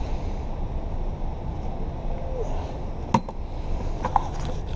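Handling noise from a body-worn camera rubbing against a coat: a steady low rumble, with two sharp clicks about three and four seconds in.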